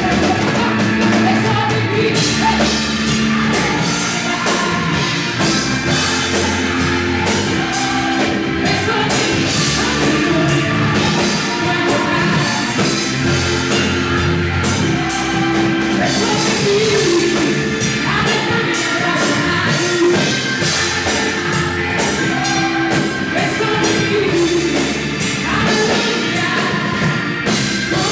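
Praise-and-worship song: singing over a full band with a drum kit.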